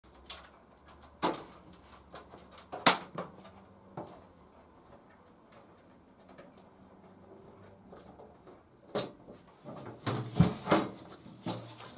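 Side panel of a Cooler Master HAF X PC case being unfastened and lifted off: scattered sharp clicks and knocks, the loudest about three seconds in, with a busier run of handling noise near the end.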